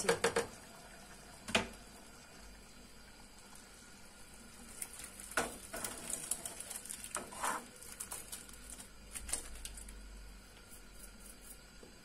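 Thick minced-meat and tomato filling poured from a saucepan onto fried aubergine slices in a frying pan. Soft wet sliding and plopping, with a few short knocks of the pot and utensil.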